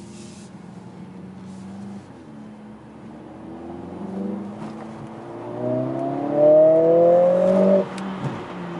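Mercedes-AMG CLA 45 S's turbocharged 2.0-litre four-cylinder engine, heard from inside the cabin: it runs low and steady at first, then accelerates hard from about four seconds in with its pitch rising, loudest just before it cuts off sharply near the end, followed by a single sharp click.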